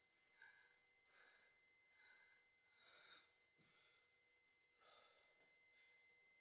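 Near silence, with faint breathing: soft breaths about once a second through the first half and one more about five seconds in.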